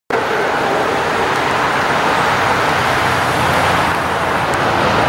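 A car engine running steadily under a dense, even noise, cutting in suddenly at the start.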